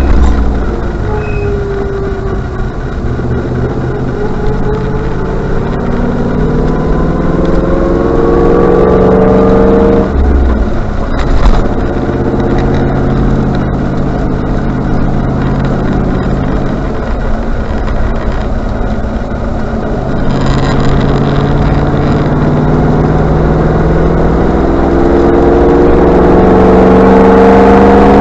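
Range Rover Classic engine accelerating under way, its pitch climbing and then dropping back about a third and two-thirds of the way through as gears change.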